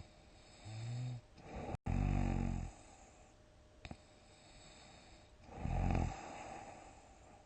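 A sleeper snoring heavily in big snores one after another. First a short pitched snore, then a louder, longer rumbling snore about two seconds in, and another about six seconds in.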